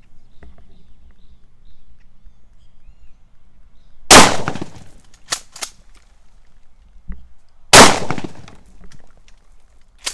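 Mossberg 590 Shockwave 12-gauge pump shotgun fired twice, two loud shots about three and a half seconds apart, the first about four seconds in. Sharp clacks between and after the shots are the pump being worked to chamber the next shell.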